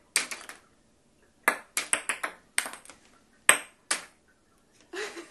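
Small plastic game balls bouncing on a hard tabletop and clattering into a plastic grid: a series of sharp clicks and pings. One run of bounces comes closer and closer together as a ball settles.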